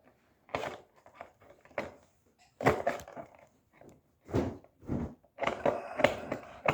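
Plastic and cardboard toy packaging being handled: irregular short crinkles and clicks, a scattering of them at first and denser near the end.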